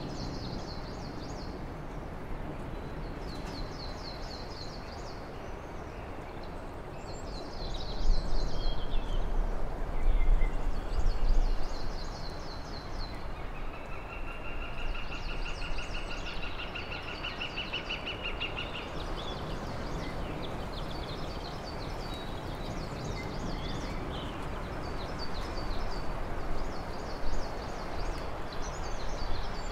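Songbirds singing short, high trilling phrases that repeat every couple of seconds, with one longer buzzing trill in the middle, over a steady rushing background noise. A few low rumbles come about eight to twelve seconds in.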